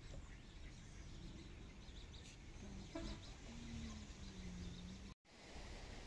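Quiet outdoor ambience with faint bird chirps and a few low, drawn-out calls in the middle; the sound cuts out completely for a moment near the end.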